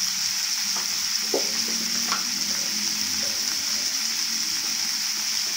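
Chopped capsicum, onion and tomato sizzling steadily in hot oil in a kadai.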